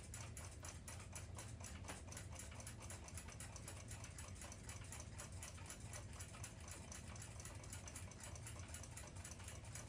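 Faint, even ticking of a clock escapement, about five or six ticks a second.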